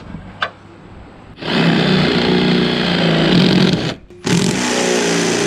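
Cordless drill boring a half-inch hole through the school bus's sheet-metal body, enlarging a pilot hole. The drill runs in two long bursts: one starting about a second and a half in and stopping around four seconds, then a second straight after a short pause.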